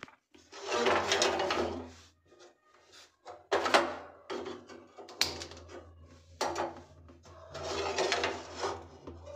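Clatter of a flat iron tawa griddle being handled and set onto a gas stove, with a few sharp metal knocks and longer stretches of scraping and handling noise.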